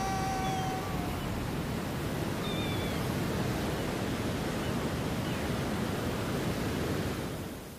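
Steady rushing ambience of wind and sea surf. A held note dies away about a second in, and a couple of faint short high chirps come through a little later. The rush fades out near the end.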